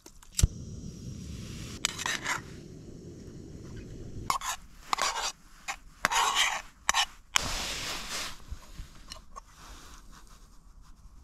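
A metal spoon scraping cooked rice out of a metal camping cook pot into a bowl, in a run of short scrapes. Before it, a sharp click, then a low steady rumble for a few seconds.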